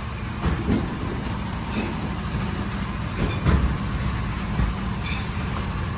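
A machine's motor running with a steady low drone, with a few short knocks and clatter over it, the loudest about half a second in and about three and a half seconds in.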